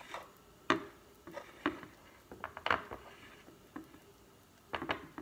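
A metal spoon scraping and knocking against a plate while hummus is spread over it: irregular light clicks and short scrapes, with a quick flurry near the end.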